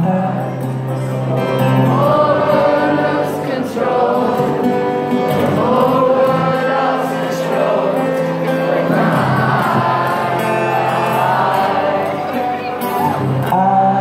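Acoustic guitar strumming chords while the audience sings along as a crowd choir.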